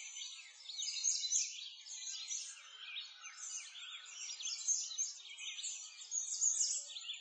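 A busy chorus of small birds chirping, with many quick overlapping chirps and tweets.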